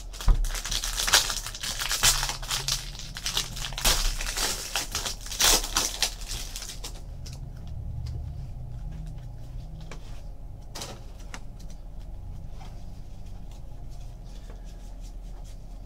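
Foil trading-card pack wrappers being torn open and crinkled, a busy run of crackles and tears for about the first seven seconds, then only a few scattered rustles and clicks.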